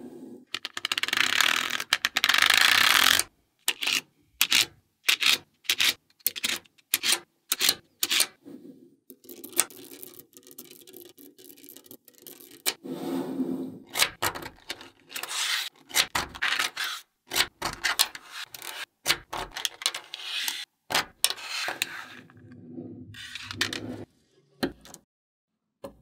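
Small magnetic balls being handled: sharp clicks as slabs of balls snap together, with rubbing and scraping as they slide across the table. Near the start a long rasping scrape lasts about three seconds, and the sounds stop and start abruptly between takes.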